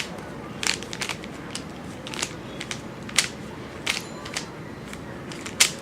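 3x3x3 Rubik's cube being scrambled by hand: its plastic layers turning with quick, irregular clicks and clacks, about three a second, the loudest near the end.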